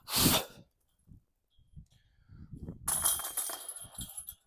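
A putted disc strikes the metal chains of a disc golf basket with a brief clash, followed by a few soft footsteps. About three seconds in, the discs are lifted out of the metal basket with a longer jangle of chains and metal.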